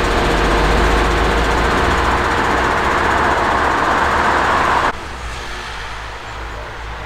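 Heavy diesel engine noise of a loaded MAN beet truck pulling away. About five seconds in it cuts off abruptly to the quieter, steady low running of the Ropa Maus 5 beet loader's diesel engine.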